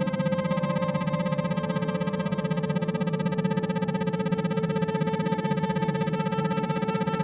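Synthesized meditation tones: a low drone with several higher held tones, all pulsing rapidly and evenly on and off in the manner of isochronic tones. Some of the higher tones change pitch about a second and a half in.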